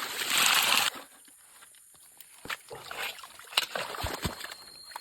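Water splashing and sloshing for about a second, then cutting off suddenly. After that, scattered light taps and knocks against a quiet background.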